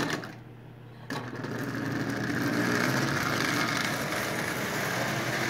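Toy Marx William Crookes locomotive's double-reduction electric motor starting up about a second in and running steadily, with the train's wheels rolling on three-rail tinplate track as it pulls four passenger cars.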